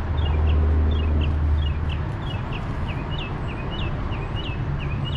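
A bird chirping over and over, short high notes about three a second, over a steady low hum that is loudest in the first second and a half.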